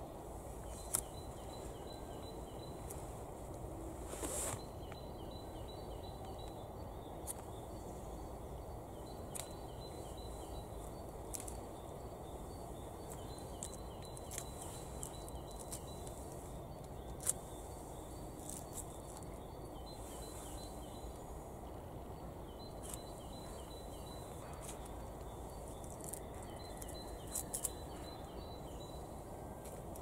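Scattered sharp snaps and crackles as birch bark is torn and peeled off a fallen birch branch by hand, with dry leaf litter rustling, over a quiet outdoor background with faint bird calls.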